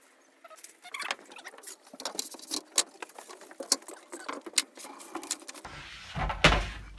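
A quick run of small clicks, taps and rattles from flat-pack bookcase parts and hardware being handled, then one loud thump about six and a half seconds in.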